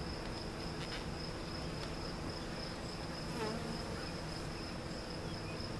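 Honey bees buzzing in a steady low hum around an opened package of bees.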